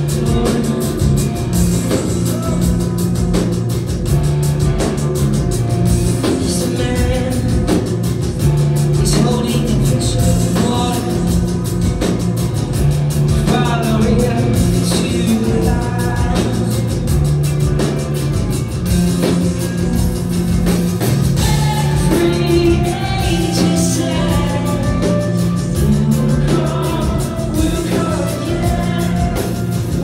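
Live rock band playing loudly through a PA: drums, bass, guitars and a singing voice. Heard from a balcony through a phone's microphone.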